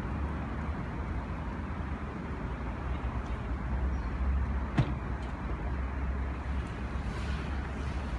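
A car driving, its engine and tyres making a steady low rumble, with a single sharp knock a little under five seconds in.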